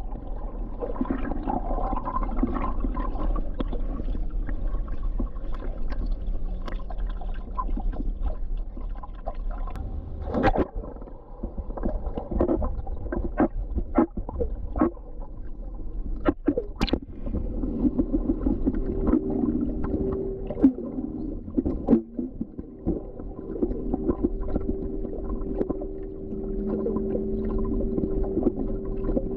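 Underwater sound in a swimming pool: a low, muffled rumble with bubbles gurgling and sharp clicks and pops as a swimmer moves through the water. About two-thirds of the way through, a steady hum joins in.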